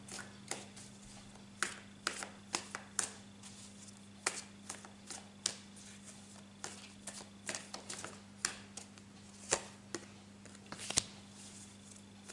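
A deck of tarot cards being shuffled by hand: irregular light clicks and snaps of card edges, a few a second, over a steady low hum.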